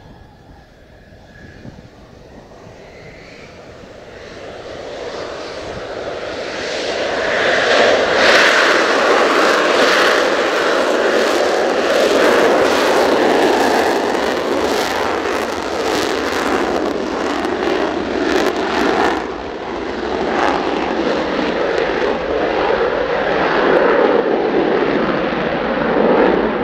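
Mitsubishi F-2B fighter taking off on afterburner, its single F110 turbofan growing louder over the first seven seconds or so and then staying loud as the jet rolls past and climbs away. Through the middle stretch the jet noise carries a ragged crackle.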